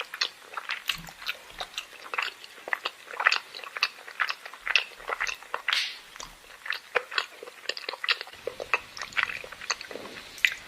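A person chewing a meal of chicken and egg with the mouth open, close to the microphone: many short, irregular mouth clicks, several a second.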